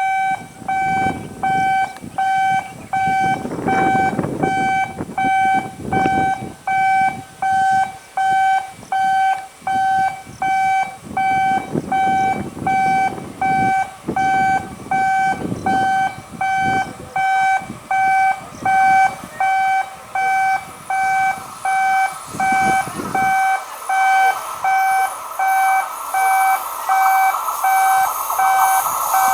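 Electronic warning beeper sounding in steady, evenly repeated beeps, about one and a half a second. Near the end the rising noise of an approaching electric multiple unit train grows underneath it.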